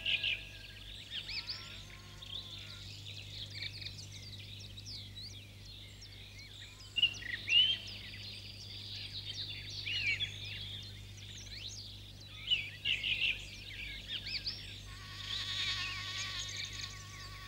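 Birds chirping and twittering in many quick, rising and falling calls over a faint steady low hum. About fifteen seconds in, a wavering buzzy tone with many overtones joins them.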